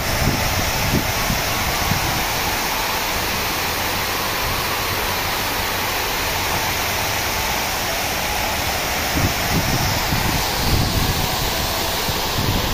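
Steady rush of water raining down inside a natural-draught cooling tower into its basin, like a waterfall. Wind buffets the microphone with low rumbles near the start and again in the last few seconds.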